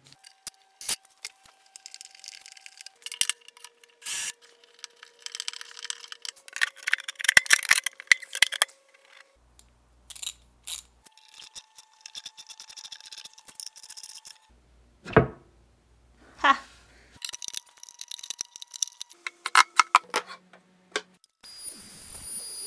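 Hardware-fitting sounds: metal clicks and rattles of hinge parts and screws, with short bursts of a cordless drill running a Vix bit and driving screws into the wooden bench. Near the end a Triton router with a 5/8-inch roundover bit starts up and runs with a steady high whine.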